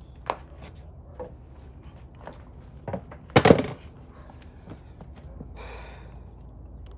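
Scattered sharp clicks and knocks from handling tools and the hanging light fixture at a metal junction box, loudest a quick cluster of knocks about halfway through. Near the end a short rasp as a wire stripper works on a house wire's insulation.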